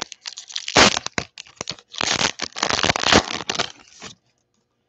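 A foil Pokémon booster pack wrapper being torn open and crinkled in the hands. It comes as a run of loud, crackling bursts starting about a second in and stopping shortly before the end.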